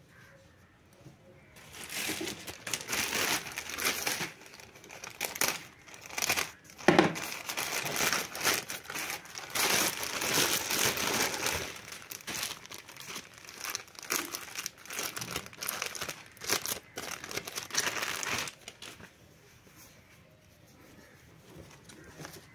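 Clear plastic packaging bag crinkling and rustling as it is handled around a gym vest, a dense run of crackles starting about two seconds in and stopping a few seconds before the end, with one louder crackle about seven seconds in.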